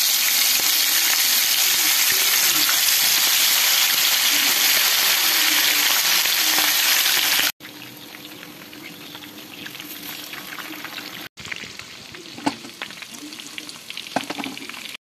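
Marinated chicken drumsticks frying in hot oil in a pan: loud, dense sizzling for about the first half, then after a cut quieter sizzling with scattered pops and crackles.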